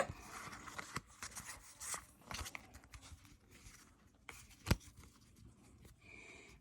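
Pokémon cards and foil booster-pack wrappers being handled: faint rustling and crinkling with scattered small clicks, and one sharper tap about three-quarters of the way through.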